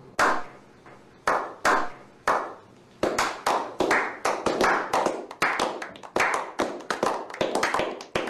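A small group of men slow-clapping: four single claps spaced out over the first three seconds, then the clapping speeds up into a quicker run of about three to four claps a second.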